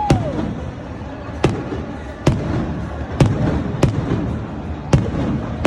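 Fireworks display: about six sharp bangs at uneven intervals of roughly a second. A falling whistle sounds at the very start.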